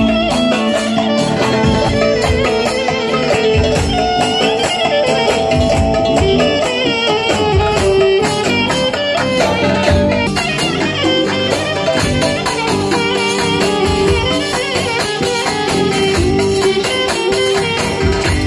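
Live band music with a steady beat: electric keyboard, electric guitar and clarinet playing a melody together.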